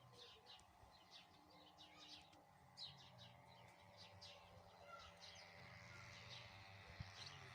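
Faint birds chirping: quick short chirps repeated over and over, with a low steady hum underneath.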